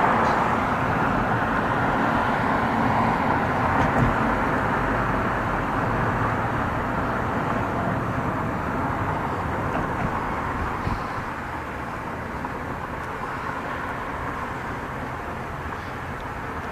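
Steady tyre and wind noise of a car driving at highway speed, heard from inside the car. It has a small knock about four seconds in and gets a little quieter from about eleven seconds on.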